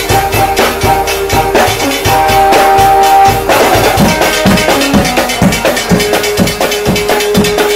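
A patrol-music ensemble drumming fast on large drums, barrel drums and other percussion, with a few held melodic notes over the beat. Heavier low drum strokes come in about halfway through.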